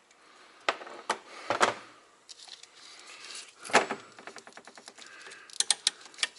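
Hand tools working on a semi truck's fan solenoid as it is taken off: scattered metal knocks and clinks, with a quick run of even clicks, about ten a second, lasting about a second from around four seconds in.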